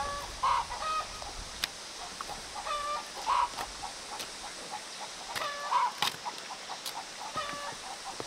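Chickens clucking in short clusters of calls every couple of seconds, with a few sharp knocks of hoes striking the soil.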